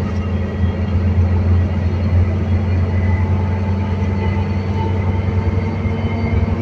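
Volvo B7TL bus's diesel drivetrain with Voith automatic gearbox, heard from inside the bus while under way: a steady, even low drone with faint whining tones above it.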